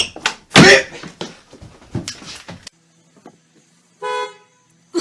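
A loud noisy burst about half a second in, followed by scattered knocks. Then the sound cuts off to near silence, broken about four seconds in by one short horn-like beep lasting half a second.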